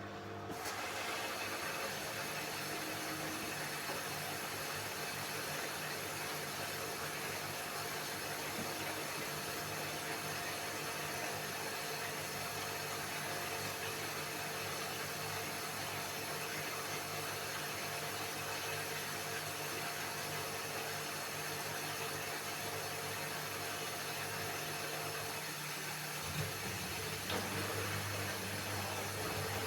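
Samsung AddWash WW70K5410WW washing machine running in its spin-and-drain cycle: a steady mechanical hum with a rush of noise over it. The noise comes in sharply about half a second in, and the low hum shifts in pitch near the end.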